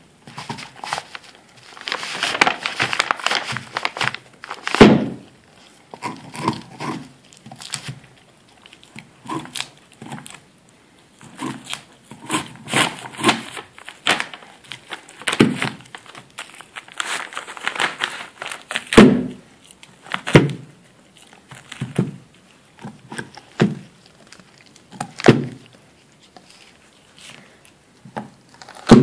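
Dog gnawing a big raw soup bone: teeth scraping and crunching on the bone, with irregular sharp knocks as the bone shifts against the paper-covered floor, a few of them loud.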